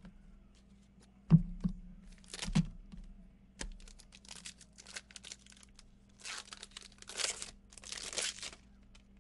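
A foil 2018 Prizm football card pack being torn open and crinkled, with three longer ripping crinkles in the second half after a run of small crackles. Two sharp knocks come earlier, the first, about a second in, the loudest.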